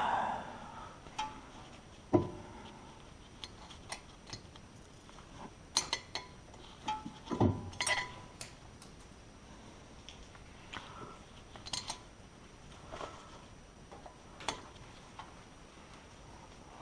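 Scattered metallic clinks and knocks of tools and brake parts being handled during front brake assembly. The two sharpest knocks come about two seconds and seven and a half seconds in, with lighter clicks between and after.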